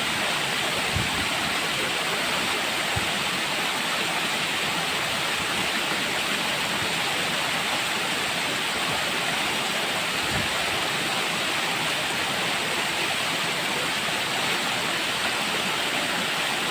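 Steady rushing water, an even unbroken hiss.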